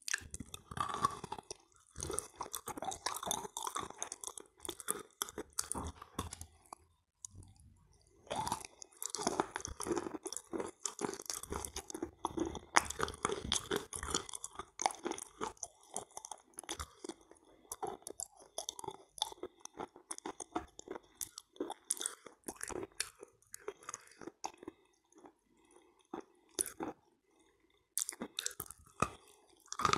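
Close-miked chewing and biting of edible clay halva coated in kaolin cream: wet, crackly crunching and smacking. It stops for about a second around seven seconds in, and again briefly near the end.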